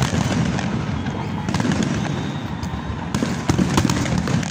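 Aerial fireworks display: a dense, unbroken barrage of shell bursts and crackle, many bangs overlapping over a continuous low boom.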